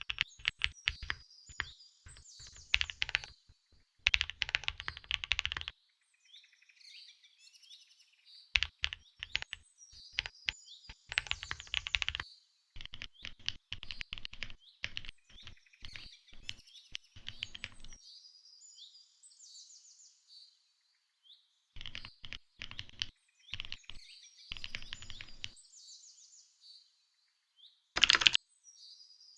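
Mechanical keyboard typing in quick runs of key clicks, each run lasting one to a few seconds, with short high bird chirps in the gaps between runs.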